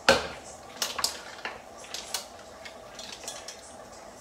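Metal tongs clinking against a steel frying pan of mussels, and the pan knocking on a larger pot as the mussels are tipped in: a run of sharp metallic clinks, the loudest at the start, then sparser and fainter.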